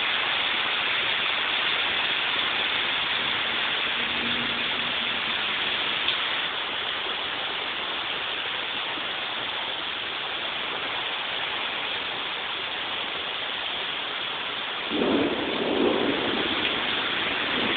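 Torrential rain pouring down, a steady heavy hiss. About fifteen seconds in, a louder, lower rumble swells for a second or two.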